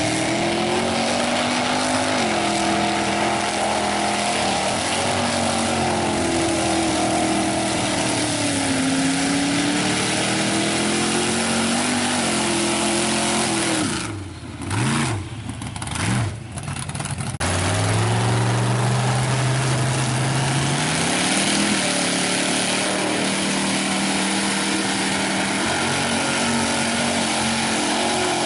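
Lifted mega truck's engine revving hard, its pitch rising and falling over and over as the big tyres spin through dirt. About halfway it drops to a brief lull, then holds a steady low note and climbs again.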